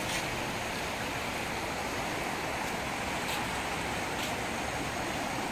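A river in flood rushing past, its muddy floodwater running high and fast. It makes a steady, even rushing sound.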